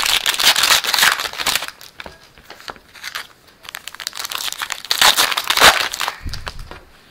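A baseball trading card pack's plastic wrapper crinkling as it is torn open and peeled back by hand. There is a long spell for about the first two seconds and another burst around five seconds in.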